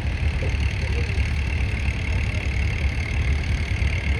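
Tractor engine running steadily at idle, a continuous low rumble.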